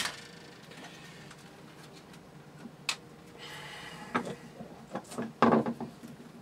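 Handling noise from hands working parts loose inside a plastic computer case. There is a sharp click at the start, another about three seconds in, a brief scrape, then a cluster of clicks and knocks near the end, the loudest about five and a half seconds in.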